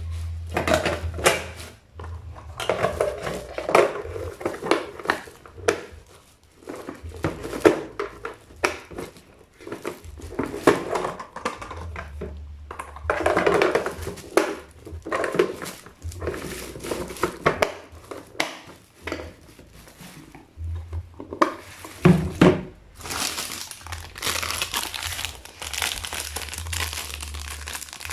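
Packaging being unwrapped and handled, crinkling and crumpling in irregular bursts, with a dull knock about 22 seconds in.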